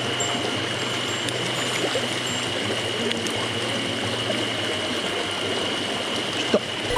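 Steady rush of a small, shallow mountain stream running low over rocks, with a single sharp click near the end.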